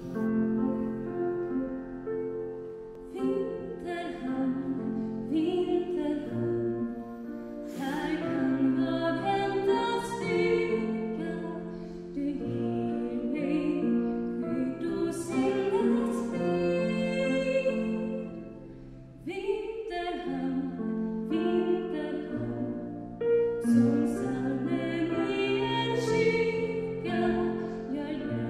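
A solo female voice singing a slow song over held, sustained accompaniment chords.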